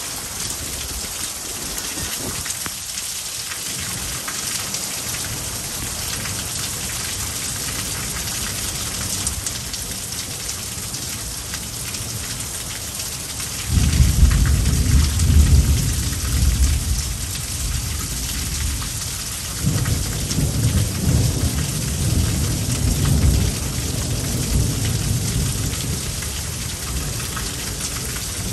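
Steady rain hissing throughout, with thunder breaking in suddenly about halfway through and rumbling for several seconds, then a second, weaker rumble of thunder soon after.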